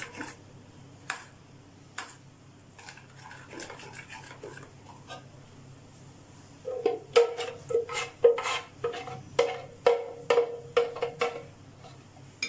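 A metal spoon scraping batter out of a blender jar into a glass bowl: faint scrapes at first, then from about seven seconds in a quick run of about a dozen sharp knocks that ring briefly as the spoon is tapped against the jar.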